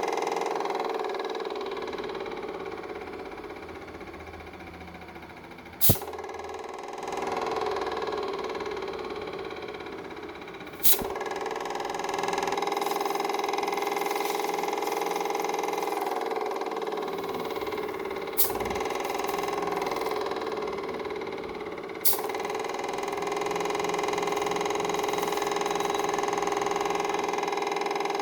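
Homemade air compressor built from a refrigerator compressor, running with a steady motor hum, with four sharp clicks spaced several seconds apart.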